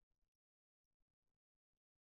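Near silence, broken by faint, irregular little clicks.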